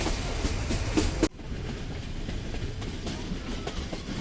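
Nilgiri Mountain Railway toy train carriage running on the rails, its wheels clicking over the rail joints over a steady rumble. About a second in the sound drops suddenly and carries on quieter.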